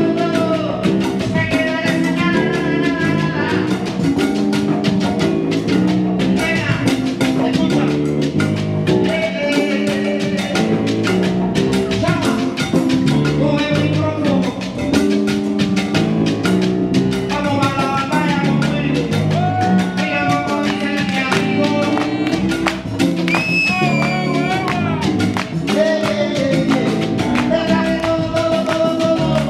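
Live Cuban salsa band playing a song: a lead singer sings over piano, bass, congas and timbales.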